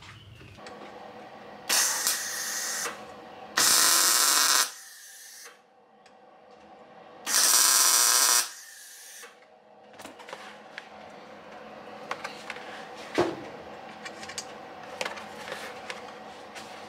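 MIG welder arc crackling in three short bursts of about a second each, laying tack welds on a steel seat slider part. Scattered light clicks and taps follow in the second half.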